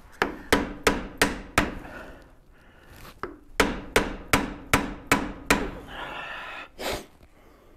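Hammer blows driving a steel pry tool into the RTV-sealed joint of a 1914 Studebaker SC-4's rear axle hub, each strike ringing briefly. They come in two runs of about three a second: five at the start, then about seven more after a pause, with one last blow near the end. The joint is stuck fast on old RTV sealant.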